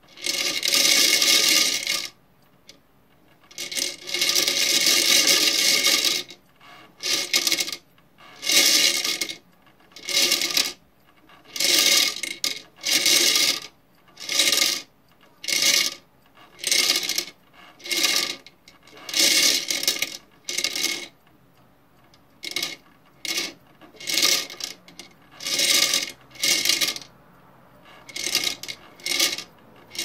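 Tic Tac mints rattling and clattering in the turning plastic drum of a toy washing machine. Two long stretches of rattling at first, then short bursts, most about a second apart, as the mints tumble and drop.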